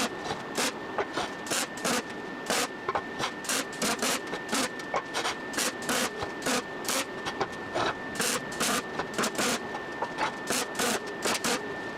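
A machine running with a steady high whine and a regular clicking, about two to three clicks a second, that cuts off suddenly at the end.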